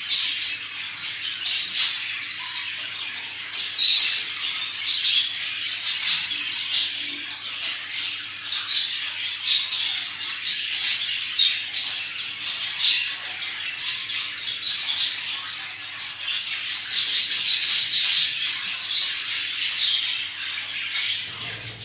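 Budgerigars chattering and warbling, a dense run of short, high, overlapping squawks and chirps from several birds.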